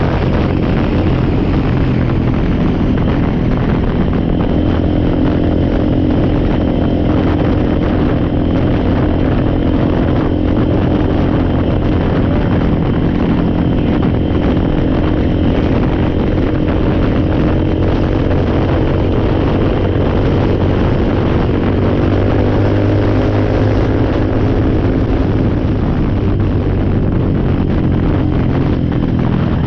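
ATV engine running steadily under way, its note shifting a little near the end, with road and wind noise over it.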